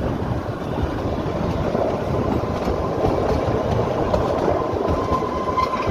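Kalka–Shimla narrow-gauge toy train running along the track, heard close to the coaches: a steady rumble and rush of wheels on rail. A faint thin whine comes in about halfway and grows a little louder near the end.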